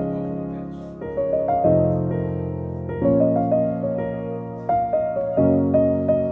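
Background piano music: a slow melody of single notes over chords that change every second or two.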